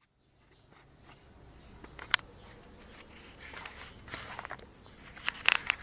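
Faint background noise with a few scattered short clicks and soft rustles, the sharpest click about two seconds in and a small cluster near the end.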